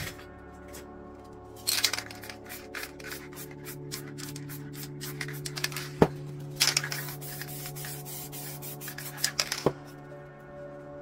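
Aerosol spray paint cans hissing in short bursts, with scratchy rubbing noises and a couple of sharp clicks, over steady background music.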